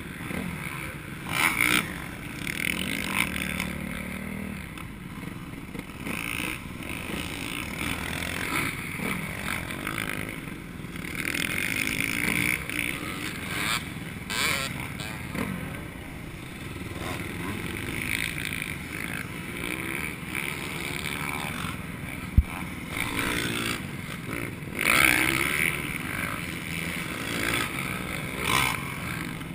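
Motocross dirt bike engines running and revving up and down, heard through a helmet-mounted camera's microphone, with brief noisy buffets. A single sharp click comes about two-thirds of the way through.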